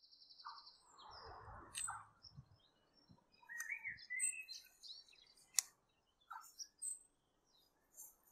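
Small birds chirping and twittering in short, scattered calls, some rising and falling in pitch, with one sharp click about five and a half seconds in.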